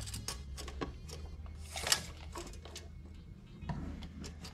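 Small clicks and taps of hands handling a tape measure and parts on a wooden workbench, with one sharper click about two seconds in, over faint background music.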